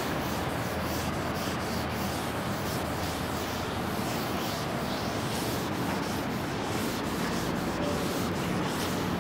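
Faint, irregular scratchy strokes of writing on a board, over a steady rushing hiss.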